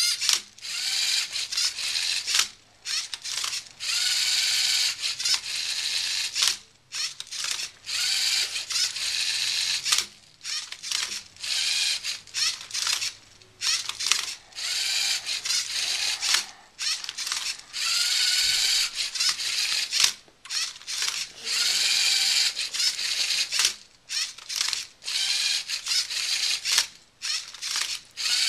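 LEGO Mindstorms Rubik's-cube-solving robot at work: its motors and plastic gears whir and grind in repeated bursts of about half a second to two seconds, with short pauses between, as the arm tips the cube and the turntable turns it.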